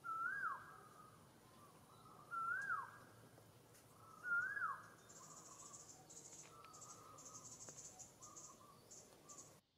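A whistled animal call that rises and then drops sharply is repeated about every two seconds, with softer flat notes between the calls. From about halfway in, insects chirp in rapid high pulses. The sound cuts off abruptly just before the end.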